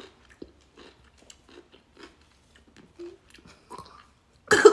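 Close-up chewing of a slice of garlic pickle: soft wet crunches and mouth clicks. Near the end comes a sudden loud cough.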